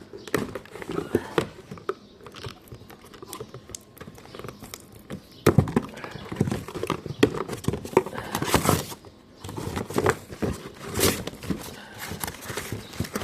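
Packaging and parts of a boxed pressure washer being handled: irregular knocks and clatter with rustling, the loudest knocks about five and a half and eight and a half seconds in.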